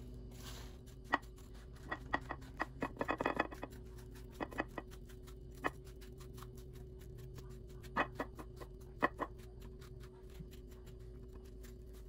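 A metal fork scraping through cooked spaghetti squash, pulling the flesh into strands: light scratching with scattered short clicks, a quick run of them a couple of seconds in and single sharper ones later.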